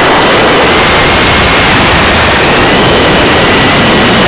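FPV quadcopter's motors and propellers heard through its onboard camera's microphone: a loud, steady hiss with a faint high whine that rises slightly about two and a half seconds in.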